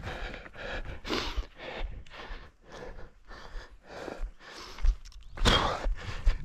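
A runner breathing hard while running, with footfalls, about two breaths or steps a second. There is a louder, heavier breath about five and a half seconds in.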